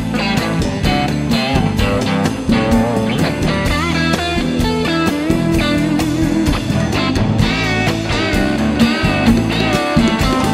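Background rock music led by guitar, with a steady beat and a wavering lead line.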